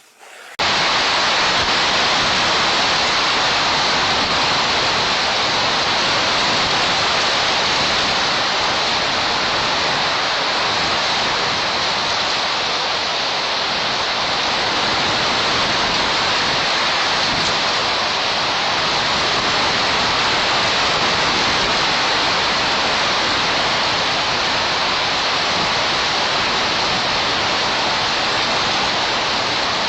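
Steady, even hiss with no distinct events, starting abruptly about half a second in.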